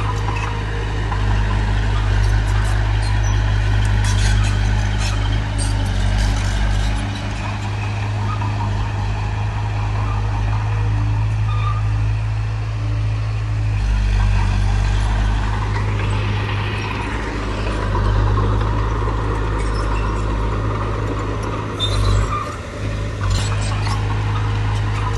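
Heavy diesel earthmoving machinery running steadily with a deep engine hum, with scattered clanks and rattles in the first several seconds. The engine note changes about halfway through.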